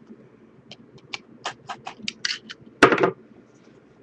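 Hands handling a cardboard trading-card box and a utility knife: a run of small clicks and taps, then a short scraping rustle about three seconds in as the box is pulled open.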